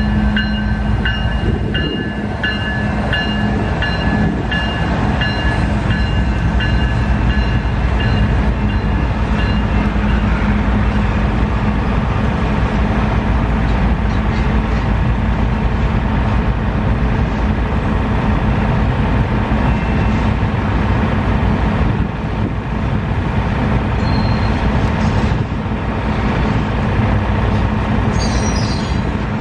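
Double-stack intermodal freight train's well cars rolling past, a steady heavy rumble of steel wheels on rail. For about the first ten seconds a high ringing tone pulses about twice a second over the rumble, then stops.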